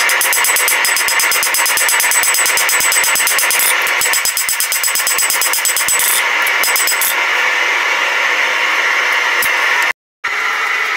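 Hand hammer striking a red-hot steel knife blade on an anvil in a fast run of blows, with a steady noise behind. The blows stop about seven seconds in. The sound cuts out briefly near the end.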